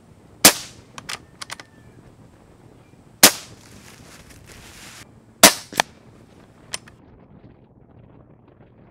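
Umarex Gauntlet .25 regulated PCP air rifle firing three shots about two and a half seconds apart, each a sharp crack, with a few lighter clicks in between.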